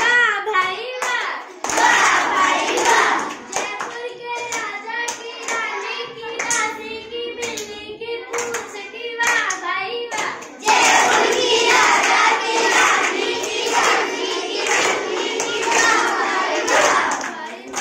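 A class of children singing or chanting together while clapping their hands in time. The singing and clapping grow louder and fuller about eleven seconds in.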